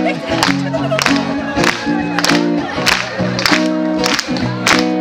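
Acoustic guitar strummed hard in a steady rhythm through a stage sound system, sharp percussive strokes about every half second with the chords changing every few strokes.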